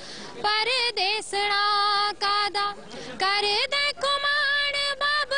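A young woman singing a Punjabi folk song solo into a microphone, with long held notes and wavering ornamented turns, broken by short breaths between phrases.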